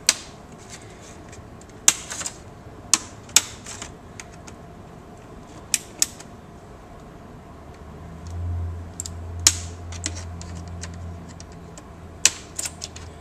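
Plastic retaining tabs of a laptop screen bezel snapping loose as the bezel is pried off with a flathead screwdriver: a dozen or so sharp snaps at uneven intervals. The snapping is the tabs releasing, not parts breaking. A low hum runs for a few seconds in the middle.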